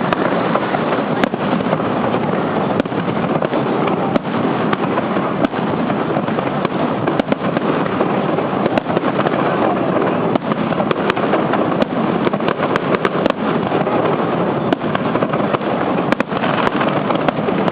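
Fireworks display going off: many sharp bangs and pops scattered over a loud, dense, steady noise.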